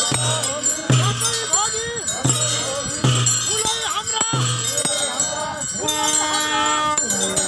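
Brass hand bells ringing continuously in a ritual, over a low pulse repeating about every three quarters of a second and crowd voices. Near the end a long held tone sounds for about a second.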